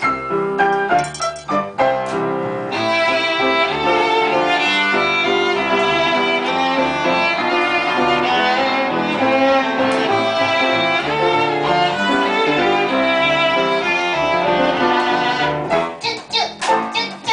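Violin and piano duo playing a waltz: the piano alone in short, clipped notes for about the first two seconds, then the violin comes in with a held, singing melody over the piano; near the end the short, clipped notes return.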